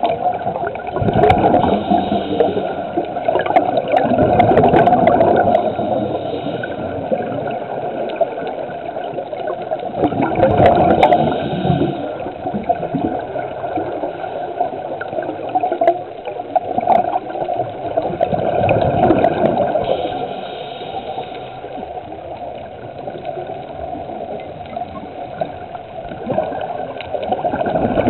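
Underwater sound of a scuba diver's exhaled bubbles gurgling from the regulator, coming in surges every few seconds over a steady rush of water.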